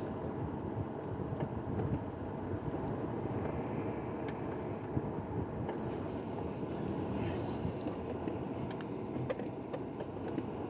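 Tow vehicle's engine running steadily at low speed while backing a boat trailer, heard from inside the cab, with a few light clicks in the second half.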